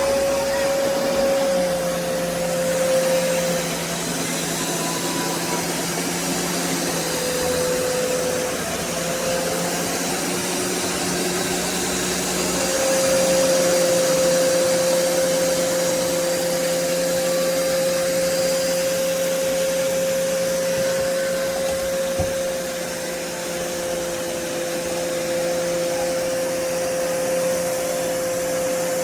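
BISSELL Revolution HydroSteam Pet carpet shampooer running with its suction motor on. The steady whine dips in pitch a few times and comes back.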